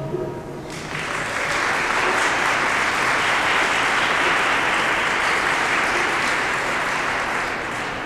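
Audience applauding, rising about a second in and tapering off near the end.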